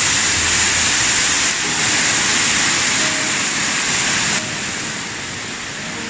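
Falling water rushing and splashing in a steady loud hiss, dropping a step quieter about four and a half seconds in.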